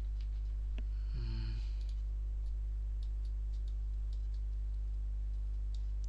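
Computer mouse clicks, a few scattered sharp clicks over a steady low hum.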